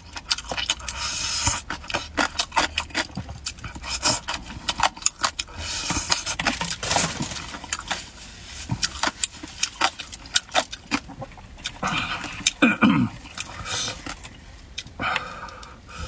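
Close-miked eating sounds of a person eating spicy pork leg curry: rapid wet chewing, lip smacks and clicks, with a few noisy breaths or slurps. About thirteen seconds in there is a brief low falling hum from the throat.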